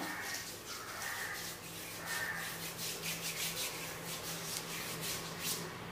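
A hand rubbing cream into the bare skin of the forearm: soft, quick swishing strokes repeated a few times a second.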